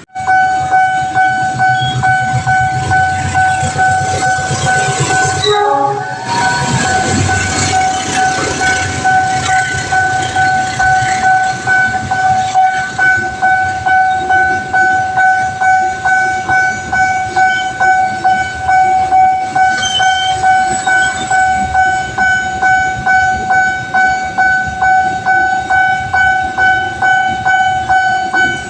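Railway level-crossing warning alarm sounding continuously, a steady two-note tone pulsing in an even rhythm, while a train runs over the crossing with its wheels clattering on the rails.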